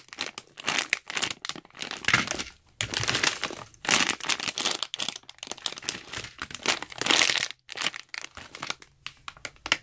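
Plastic packaging bags crinkling and crackling in irregular bursts as hands squeeze and handle foam squishy toys sealed inside them.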